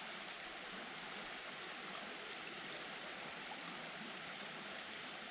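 Creek water running steadily, an even rushing hiss with no breaks.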